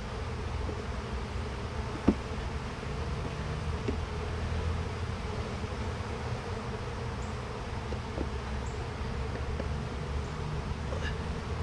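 Honey bees buzzing in a steady, droning hum over an opened hive during a frame inspection. A single short click is heard about two seconds in.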